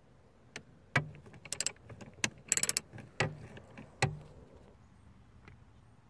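Scattered sharp clicks and two short runs of quick metallic clicking, about a second and a half and two and a half seconds in, from a 9/32-inch socket wrench on a long extension backing out the headlight switch's retaining screws and the tool and screws knocking against the plastic dash.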